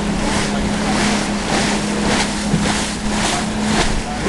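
Motorboat engine running with a steady hum under the rush of water and wind on the microphone, the noise surging about twice a second.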